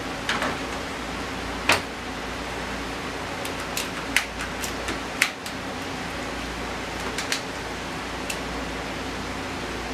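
Sharp clicks and knocks, about eight in all with the loudest near two seconds in, as metal bar clamps are set and snugged across a glued-up raised-panel door frame, over a steady shop hum.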